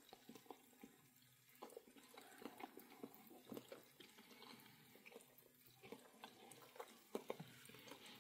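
Faint, wet chewing of a bite of a rolled-up wrap of beef patty strips and cheese spread: irregular small mouth clicks and smacks.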